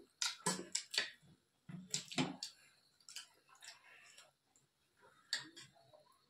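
Eating sounds: a spoon clicking and scraping on a metal plate, with chewing and mouth sounds. A cluster of sharp clicks in the first two seconds or so, then one more about five seconds in.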